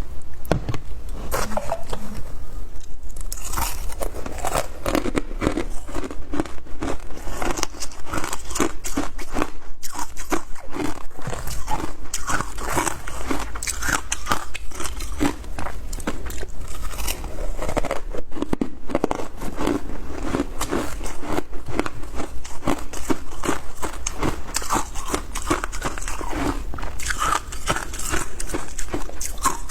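A person biting and chewing frozen matcha ice: a continuous run of crisp crunches and cracks, a few a second.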